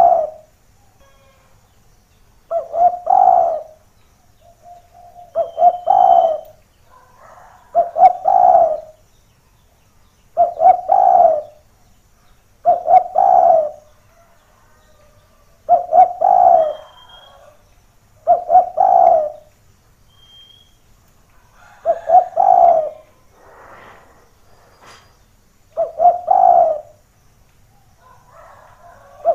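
Spotted dove (derkuku) cooing: a repeated phrase of a few short coos ending in a longer one, about every two and a half to three seconds. Fainter coos sound between some of the phrases.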